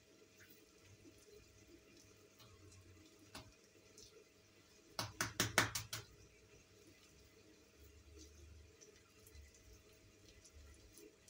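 Quiet room tone, broken about halfway through by a quick clatter of about seven sharp knocks packed into a second.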